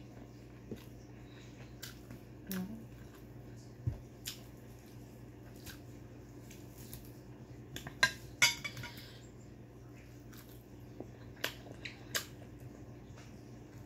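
Eating by hand from a ceramic plate: scattered small clicks and clinks as fingers pick at the fried pork and rice, with two sharper clinks about eight seconds in. A steady low hum runs underneath.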